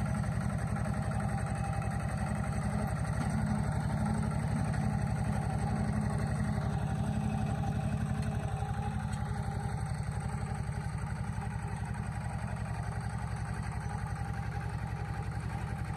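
An engine running steadily with an even low throb, easing slightly about halfway through.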